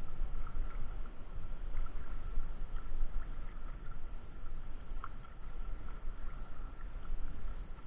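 Sea water sloshing and lapping against a camera held at the surface, heard as a muffled low rumble with small splashes. A faint steady high tone runs under it.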